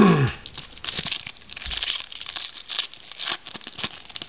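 Trading cards being handled and flipped through: soft, irregular clicks and rustles of card stock sliding against card.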